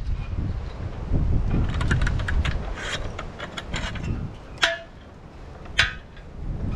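Hand post-hole auger scraping and grinding through gritty, rubble-filled ground in a run of quick scrapes and clicks, then two sharp metallic clinks about a second apart. Wind rumbles on the microphone underneath.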